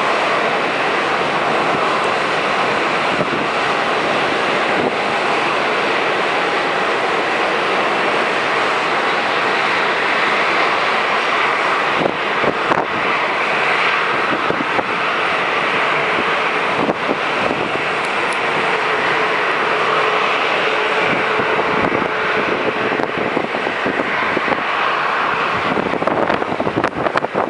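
Steady rushing roar of jet airliner engines running on an airport apron. Wind buffets the microphone in the last few seconds.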